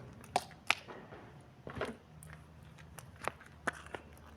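A handful of sharp, short clicks and taps from things being handled close to the microphone, over a faint steady low hum.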